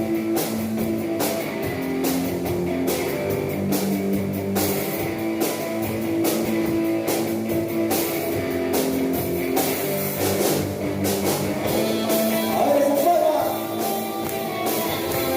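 Live rock band playing: drum kit keeping a steady beat under electric guitars and bass, the opening of a song.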